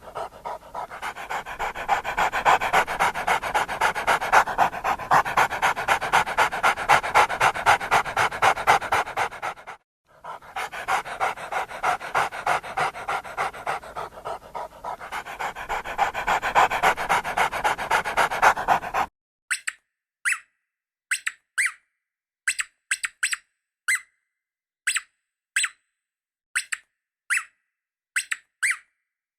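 A dog panting hard and fast in quick, even breaths, with a brief break about ten seconds in. Near the end the panting stops and gives way to a series of short, separate high squeaks.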